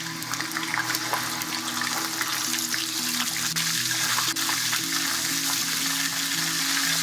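Onion puree sizzling in hot oil with whole spices, the hiss building over the first couple of seconds and then holding, with light clicks of stirring. Soft background music runs underneath.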